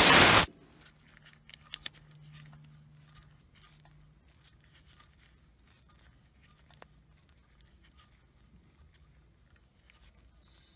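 A loud hiss of compressed oxygen venting from a Victor oxygen regulator setup, cutting off suddenly about half a second in. After that there are only faint ticks and handling sounds.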